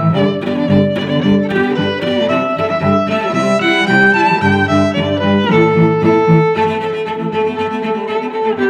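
Background music played on bowed strings, violin and cello, in held notes that change every second or so.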